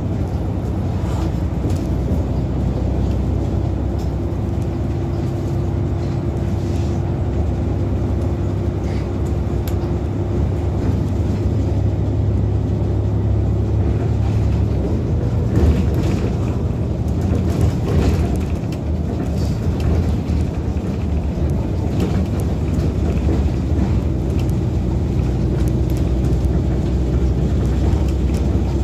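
Volvo B7RLE bus's diesel engine and ZF automatic gearbox running under way, heard from inside the bus. A steady whine sits over the engine rumble for several seconds, fades, and returns near the end. A few rattles come in the middle.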